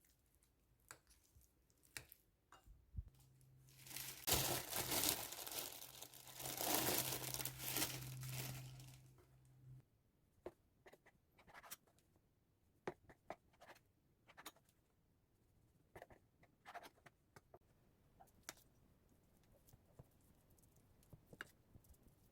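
Kitchen handling sounds: a low steady hum comes in about three seconds in, and loud rustling, tearing-like noise runs over it for about five seconds. Both stop a little before the halfway point, leaving scattered light clicks and taps.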